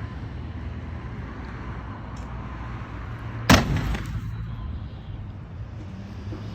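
Demolition debris thrown from the house crashing once into a dumpster, about three and a half seconds in, with a brief ringing decay, over a steady low hum.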